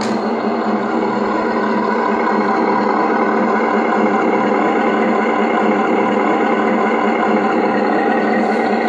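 BEIER USM-RC sound module in a 1/10-scale RC Kirovets K-700 tractor playing a diesel tractor engine sound, running steadily, through a small speaker with no deep bass.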